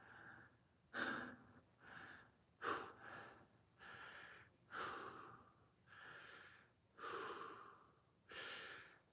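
A man breathing hard and winded after a set of exercise, faint breaths in and out about once a second, each a short rush of air.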